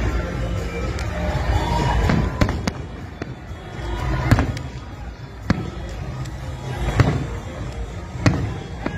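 Fireworks display: aerial shells bursting with sharp bangs about every one to one and a half seconds, over a steady low rumble of the show.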